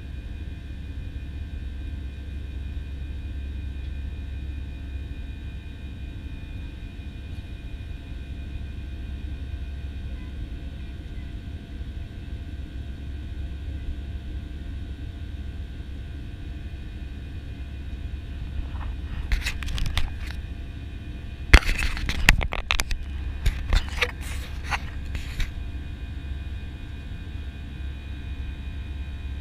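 Airbus A320 cabin noise during the climb after takeoff: a steady low rumble of engines and airflow with faint steady high tones. From about twenty seconds in, a scattered run of sharp clicks and knocks lasts some six seconds, with one loud knock in the middle.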